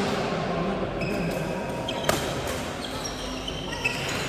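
Badminton rackets striking the shuttlecock: sharp hits right at the start, about two seconds in and near the end, with the high squeak of court shoes between them.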